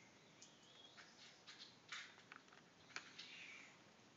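Near silence: faint room hiss with a dozen or so soft scattered clicks and light handling noise.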